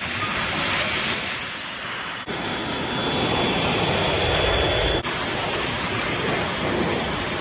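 Steady rushing noise of wind and breaking surf at the beach, changing abruptly twice where short clips are joined.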